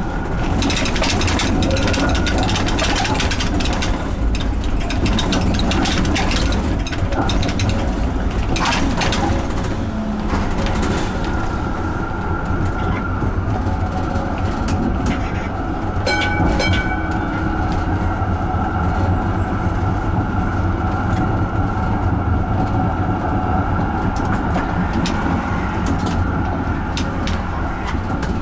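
Electric street tram running on the track: wheels clattering over rail joints and points with a low rumble, then a steady whine from about eleven seconds in.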